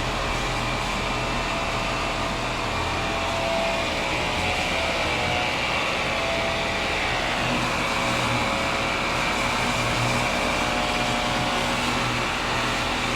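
A small electric motor running steadily over a hissing rush, its whine wavering slightly in pitch.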